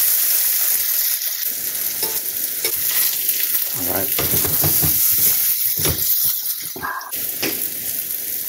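Sliced portobello mushrooms sizzling in hot oil in a frying pan as they brown, with a steady high hiss. They are stirred, with a run of short scrapes and knocks against the pan in the second half.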